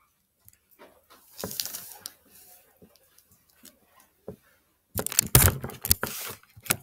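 Handling noise on the recording device: a few soft taps and rustles, then loud rubbing and knocks against the microphone about five seconds in as the device is picked up.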